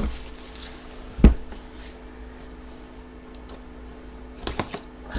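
A cardboard comic box being handled and set down on a table: one loud thump about a second in, a few light clicks, then a quick cluster of knocks near the end, over a faint steady hum.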